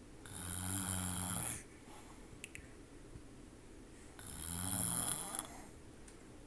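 Snoring: two long snores about four seconds apart, each lasting over a second, with a couple of faint ticks between them.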